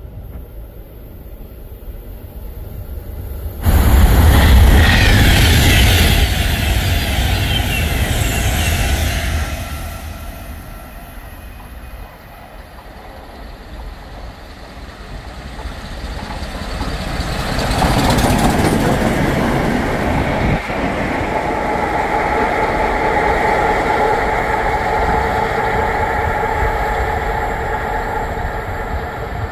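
A loud rushing noise starts suddenly about four seconds in and lasts about six seconds. Then the LMS Jubilee 4-6-0 steam locomotive 45690 Leander comes through running light with one support coach. The rumble of its wheels on the rails swells and holds, with a steady ringing squeal in it over the last several seconds.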